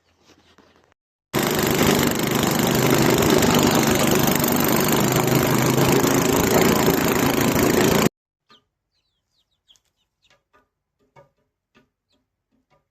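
Small snowblower engine running steadily, starting abruptly about a second in and cutting off suddenly some seven seconds later; faint scattered clicks follow.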